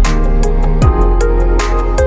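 Background music with steady melodic instruments, a deep electronic kick drum and a cymbal crash.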